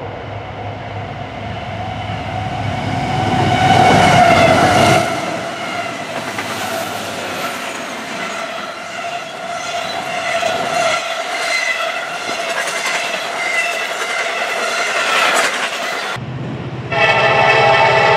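Intermodal freight train passing close by: the locomotive's sound builds over the first few seconds, then the cars roll past, the wheels clicking over rail joints. Near the end a second locomotive sounds a loud, steady horn chord.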